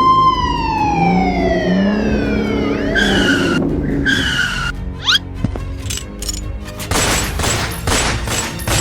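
A siren wail that peaks right at the start and winds down over about three seconds, followed by two short, slightly falling horn-like tones and a quick chirp. From about seven seconds in comes a rapid series of crashing, rattling noises. Background music runs underneath.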